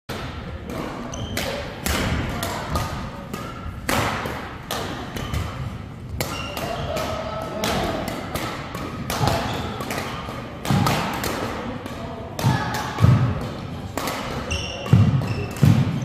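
Badminton rally: rackets hitting a shuttlecock again and again in sharp clicks, with players' feet thudding on the court floor and voices in the hall. The heaviest thumps come in the last few seconds.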